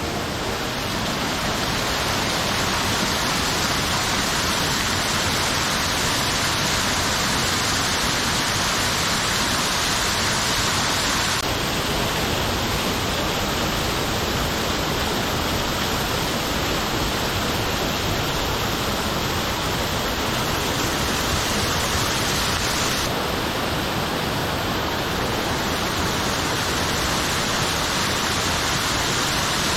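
Waterfall pouring: a steady rush of falling water, its tone shifting abruptly twice, about a third and about two thirds of the way through.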